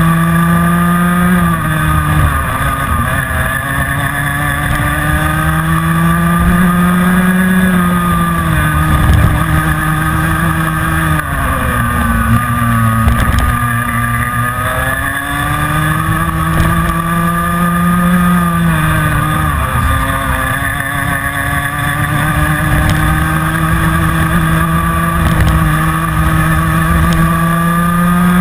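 Rotax Mini Max 125cc two-stroke kart engine at racing speed, heard onboard. Its pitch climbs slowly along each straight and drops sharply as the driver lifts off for the corners, about five times.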